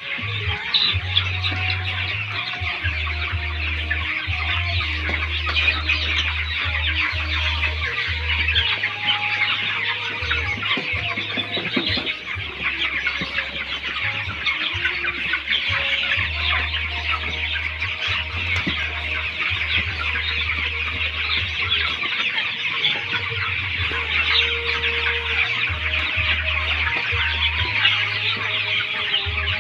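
A large flock of 20-day-old broiler chickens peeping and cheeping continuously in a dense chorus. A low rumble comes and goes underneath.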